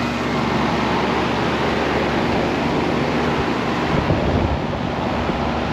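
York air conditioner condensing unit running: the condenser fan blowing a steady rush of air over a low compressor hum. It is running again on a newly fitted run capacitor, the compressor settling at about 12.5 amps.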